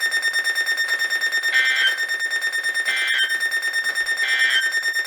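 Weather radio's end-of-message data signal: three short, identical raspy digital bursts about a second and a half apart, closing a broadcast warning. They sound over a steady, rapidly pulsing high alarm tone.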